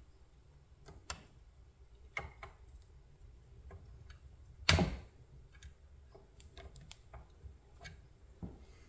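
Irregular small metal clicks and taps of needle-nose pliers working a pin out of a model crane's boom cylinder mount, with one sharper knock about halfway through.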